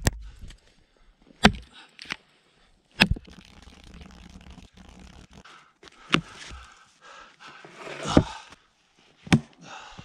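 Axe blows biting into a dead log, about six sharp chops at uneven gaps, with snow and wood scraping between them.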